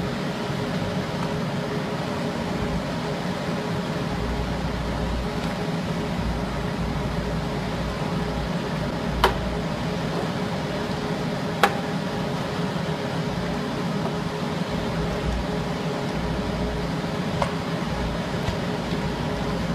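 Induction foil sealing machine running, the steady hum and whir of its cooling fan and conveyor. Two sharp clicks come a couple of seconds apart around the middle, and a faint one comes near the end.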